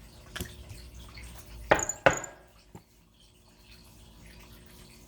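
A few light clicks and taps of objects being handled on a table, the loudest a close pair about two seconds in with a brief high ring, over faint room tone.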